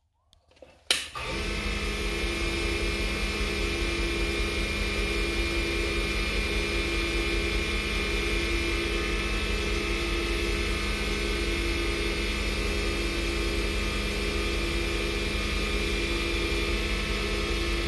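Small lathe motor switched on with a click about a second in, then running steadily with an even hum, spinning a wooden pen blank for sanding with a black abrasive pad.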